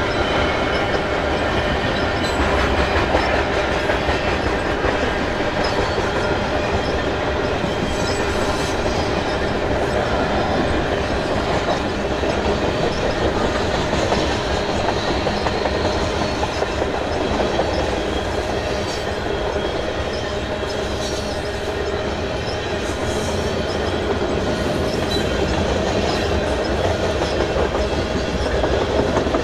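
Freight train's tank cars and covered hopper cars rolling past: a steady, continuous rolling of steel wheels on rail.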